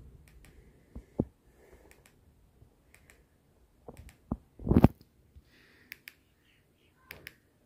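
A few short, scattered clicks of remote control buttons being pressed to scroll the receiver's channel list, with one louder knock just before five seconds in.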